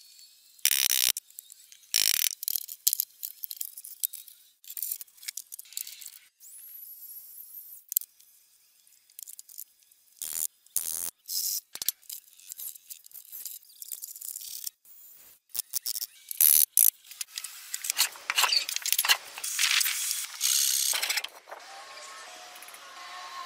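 Irregular clicks, knocks and short scrapes of hand tools and hardware being handled on wooden blocks, in many separate brief bursts.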